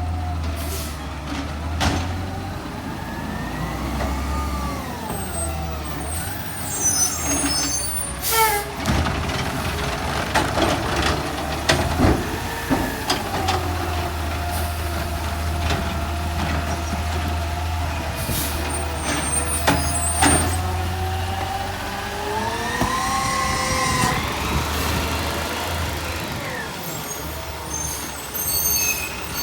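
Automated side-loader garbage truck at work: the diesel engine hums at idle and its pitch rises and falls several times as the hydraulics run the arm, with sharp clanks and air-brake hisses in between.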